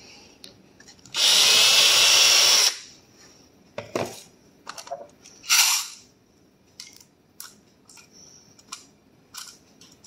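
Cordless drill with a Phillips bit running once for about a second and a half, spinning the bit in the primer pocket of a 5.56 brass case to cut away the primer crimp. Afterwards come scattered light clicks and short rattles of brass cases and a hand priming tool being handled.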